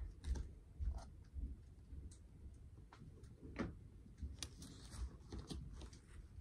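Faint, scattered clicks and light taps of Topps baseball trading cards being handled and sorted, with a few soft low bumps.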